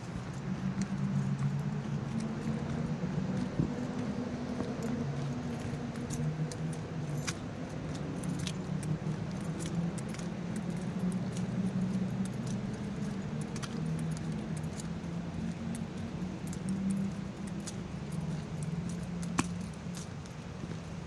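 Small metal items such as keys jingling and clinking irregularly, jostled with each step as someone walks, over a steady low hum.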